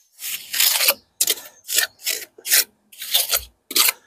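Steel trowel scraping and spreading lime mortar across the top of a brick in a run of short rasping strokes, about two a second.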